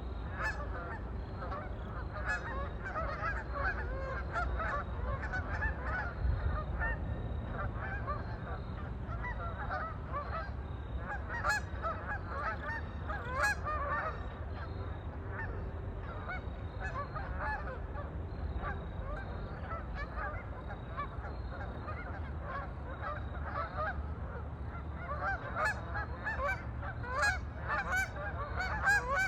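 A flock of waterfowl calling on a lake, many short honking calls overlapping. The calling is busy through the first half, thins out in the middle and picks up again near the end, over a steady low rumble.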